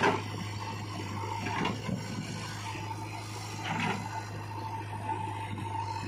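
A JCB 3DX backhoe loader's bucket dumps a load of soil into a tractor trolley: a sudden rush of falling earth at the very start, then a couple of softer scraping, rustling spills. Diesel engines run steadily underneath.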